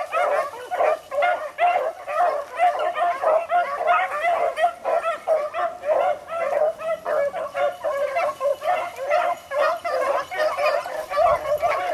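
A pack of beagles baying while running a rabbit, many overlapping calls several times a second without a break.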